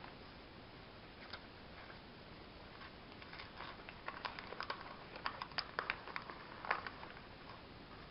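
A sheet of paper being folded and rolled by hand into a small cone-shaped funnel: faint crinkles and crisp little ticks that grow busier from about three seconds in, the loudest near the end.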